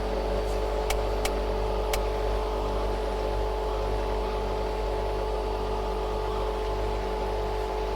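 Steady droning electrical hum over a hiss, the refrigerator hum of the horror broadcast, with a low throb pulsing about twice a second. A few sharp clicks come in the first two seconds.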